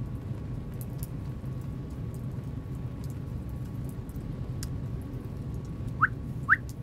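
Steady low rumble with light rain pattering and a few scattered drip ticks. Near the end, two short rising whistles from pursed lips, about half a second apart.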